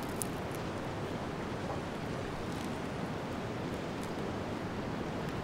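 Steady winter wind rushing evenly, with a few faint high ticks in the first second.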